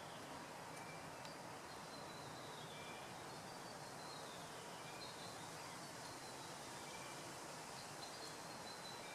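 Faint bird calls: a high whistled note sliding down in pitch, repeated every couple of seconds with a few short lower notes in between, over a steady hiss of garden background noise.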